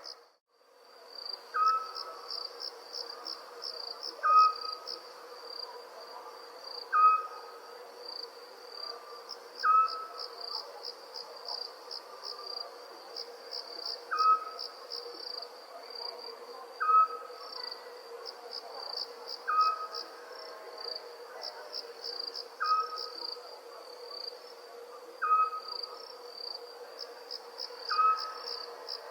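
Night-time chorus of crickets chirping in a steady pulsing trill, with a short call from another animal repeating about every two and a half seconds over it. The sound drops out for about a second at the very start.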